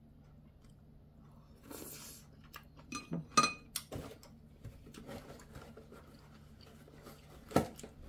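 Chopsticks clinking against a ceramic plate and bowl as they are set down, a few short ringing clinks about three seconds in, followed by a single dull thump near the end as a cardboard box is picked up off the table.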